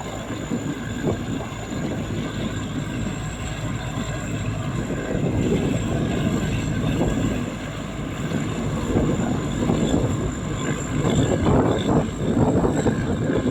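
Rice combine harvester running while it cuts standing rice: a steady engine and machinery noise that swells a little now and then, with a thin, steady high whine over it.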